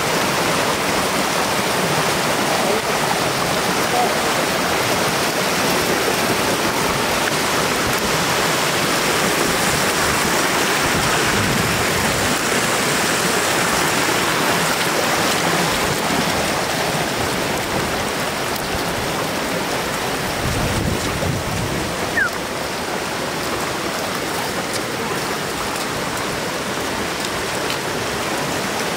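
Floodwater running in a shallow sheet over the edge of a paved road, a steady rushing hiss of flowing water.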